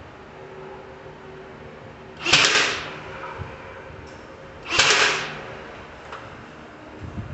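Cordless nailer fired twice into a wooden door casing: two sharp shots about two and a half seconds apart.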